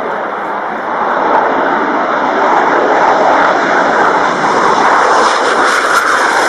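Twin turbofan engines of an AIDC F-CK-1 Ching-kuo (IDF) fighter at takeoff power, a steady rushing jet noise through the takeoff run and lift-off. It grows louder about a second in and takes on a rising hiss near the end as the jet climbs away.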